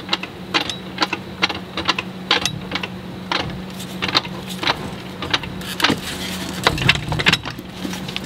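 A jack being pumped to raise a car's lower control arm: a run of irregular clicks and knocks, about two a second, over a steady low hum.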